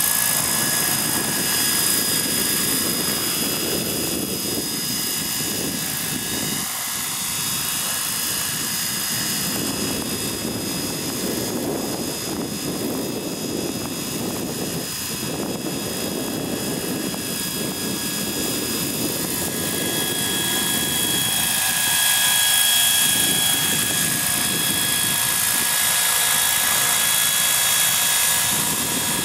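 Hurricane 550 radio-controlled model helicopter in flight: the rotor's rush with a steady high-pitched whine from the drive over it, getting somewhat louder in the last third.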